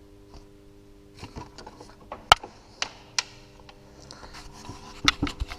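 A few sharp clicks and knocks over light scraping and rustling, from hands and tools handling parts at the engine. The loudest click comes a little over two seconds in, with others shortly after and one near the end.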